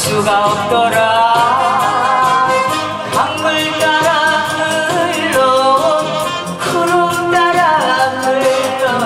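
A woman singing a Korean trot song into a microphone over a recorded backing track with a steady beat, holding and bending long notes.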